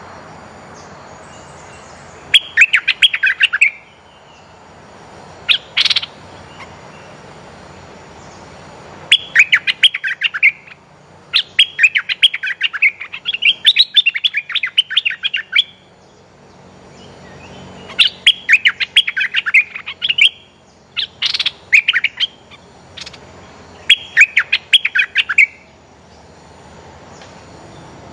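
Streak-eared bulbuls calling: bouts of rapid chattering notes, each a second or two long, repeated every few seconds, with a single sharp higher note twice. These are the lure calls of a caged decoy bulbul used to draw in wild birds.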